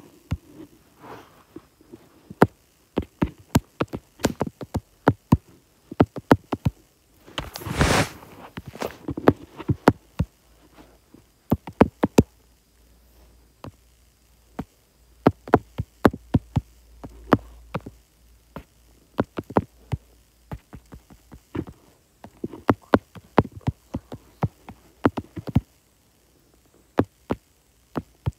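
Typing on a tablet's touchscreen keyboard: short, sharp taps in quick irregular runs with pauses between words. About eight seconds in there is a louder brief rustle.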